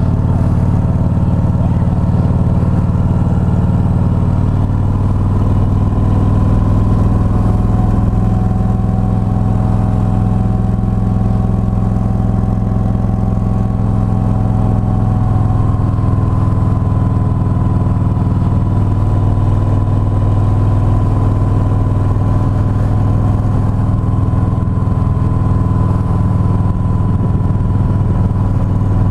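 Road vehicle engine running at a steady cruise: a continuous low drone that shifts slightly in pitch now and then, with no breaks.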